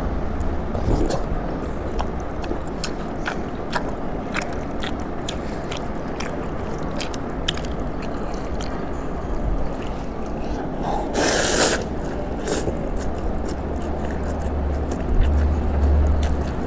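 Close-miked eating of beef noodles: irregular small clicks and smacks of chewing and slurping, with one louder noisy slurp or breath-like burst about eleven seconds in, over a steady low hum.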